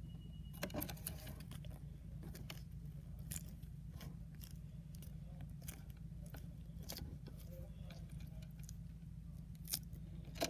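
Faint handling noises as a keychain tag on a metal ball chain is pressed into soft modelling putty and peeled back out: soft rustles and scattered small clicks, with a couple of sharper clicks about a second in and near the end. A low steady hum runs underneath.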